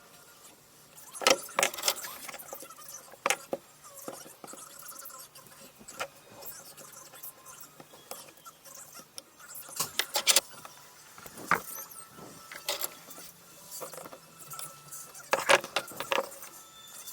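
Sharp, irregular clicks and clinks of small tools and hard plastic and metal parts being handled while a MacBook Pro charger is worked on, coming in short clusters a few seconds apart over a faint steady hum.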